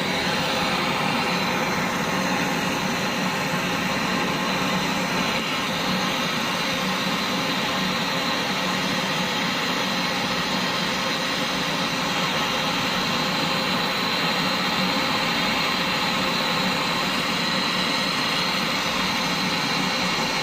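Gas brazing torch flame hissing steadily while it heats a copper pipe joint on an air conditioner to braze shut a refrigerant leak.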